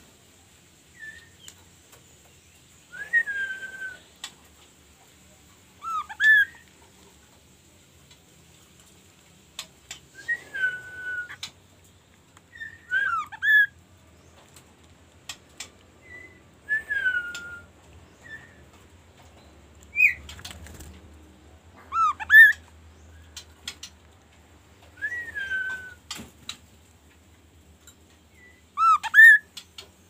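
Chestnut-capped babbler (kaso-kaso) singing clear whistled phrases every few seconds. Some notes slide down into a short held whistle and others come as quick rising pairs. Light clicks fall between the phrases.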